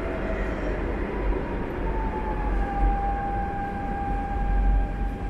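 Electric metro train heard from inside the car as it slows along a station platform: a steady low rumble with a thin motor whine that falls in pitch about halfway through and then holds steady.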